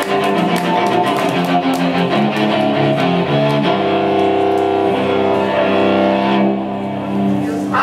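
Cello with a pickup, played with the bow: a quick run of changing notes with a crisp ticking over them, then from about halfway a held chord of sustained tones that dips slightly near the end.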